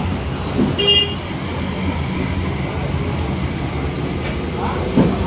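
Steady street traffic rumble with a short vehicle horn toot about a second in, and a dull knock near the end.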